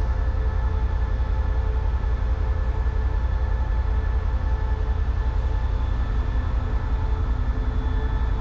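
Diesel-electric locomotive engines running steadily: a deep rumble with several steady hum tones above it.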